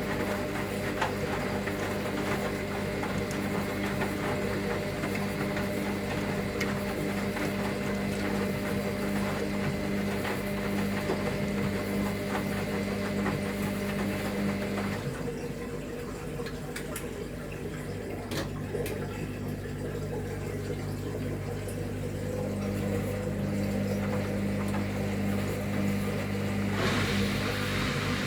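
Washing machine drain pump humming steadily while it pumps water out at the start of a spin programme, with water rushing through. The rushing water fades about halfway through and picks up again near the end.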